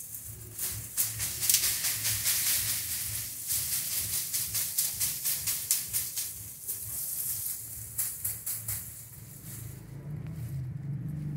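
Bundle of dried sesame plants shaken upside down, the dry pods and stalks rattling in quick, repeated shakes to knock the seeds out. The rattling runs strongly for about the first seven seconds, comes back briefly around eight seconds, then eases off.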